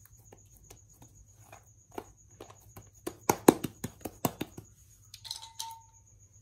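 Slime being squished and pressed by hand, giving a run of wet clicks and pops that grows denser and louder in the middle, then a short squeaky note near the end.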